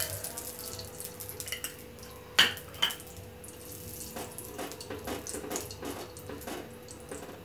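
Ghee melting in a hot nonstick kadhai, with faint crackling and small ticks as a silicone spatula scrapes and spreads it across the pan. Two sharp taps a little over two seconds in.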